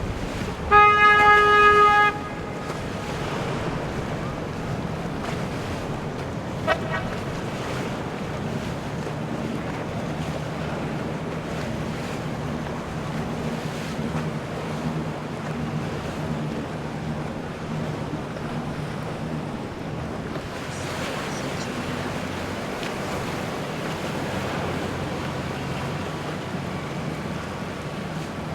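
A horn sounds once, a steady single note for about a second and a half, followed by a brief short toot a few seconds later, over a boat engine's steady low hum, water noise and wind on the microphone.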